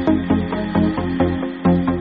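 Electronic dance music with a steady, fast beat and a sustained bass line.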